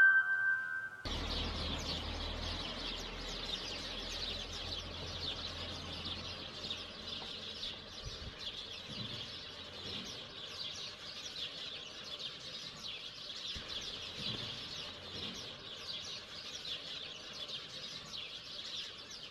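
A held flute note stops about a second in, giving way to a dense chorus of small birds chirping continuously.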